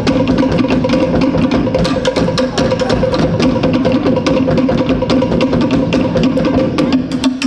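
Fast Tahitian drum ensemble rhythm: rapid, sharp wooden strikes over deeper drums, with a steady low hum underneath. Near the end the deep drums drop out and the wooden strikes carry on.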